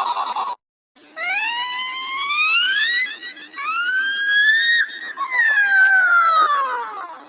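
Exaggerated, drawn-out vocal sneeze. A wailing cry cuts off abruptly, and after a brief silence come two long rising 'ah' build-ups, each climbing steadily in pitch. A long falling cry follows and trails off near the end.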